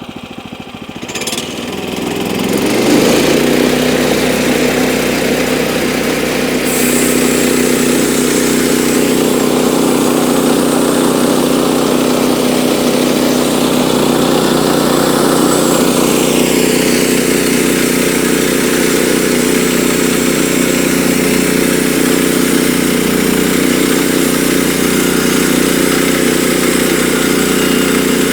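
Woodland Mills portable bandsaw mill: its small gasoline engine is throttled up over the first few seconds, then runs steadily at speed. About seven seconds in, a hiss joins it as the band blade starts sawing through a jack pine log, with the blade's lubricating water not turned on.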